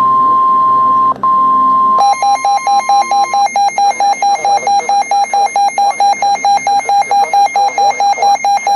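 NOAA Weather Radio 1050 Hz warning alarm tone, a steady high-pitched tone with a brief break about a second in, announcing a severe thunderstorm warning. About two seconds in, a weather radio receiver's electronic alert alarm starts over it, a rapid pulsing beep that runs on after the steady tone stops.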